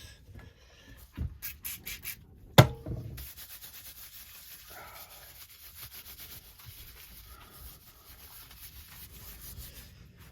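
A few light clicks and one sharp knock, then steady faint rubbing on paper, as popcorn kernels are pressed on a paper towel to test them for moisture.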